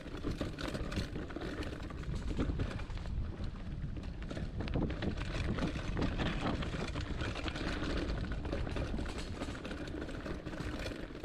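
Hardtail mountain bike rolling down a dirt singletrack: a constant rumble of tyres on the ground with dense rattling and clicking from the bike over the bumps.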